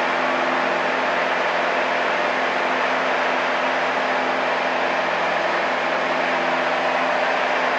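Single-engine light aircraft's piston engine and propeller running steadily at climb power, heard inside the cockpit during the climb-out just after takeoff.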